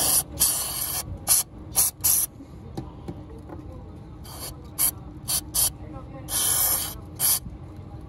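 Aerosol can of CRC throttle body cleaner sprayed through its red extension straw onto the throttle plate, in about ten short hissing squirts with a pause of about two seconds in the middle. Two of the squirts are longer, about half a second each. The cleaner is dissolving varnish and gunk on the throttle valve.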